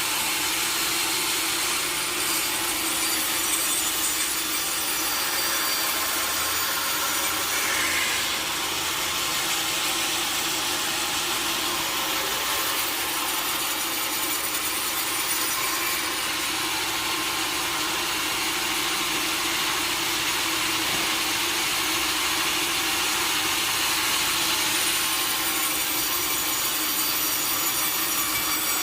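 Sawmill saw cutting steadily through a log, a continuous sound of blade in wood without a break.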